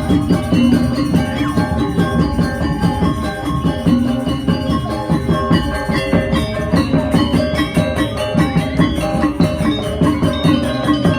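Balinese gamelan playing: many struck metallophone tones ringing over a fast, steady drum rhythm.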